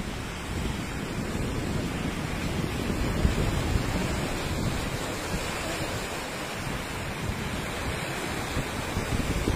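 Muddy floodwater of a rain-swollen stream rushing and churning steadily.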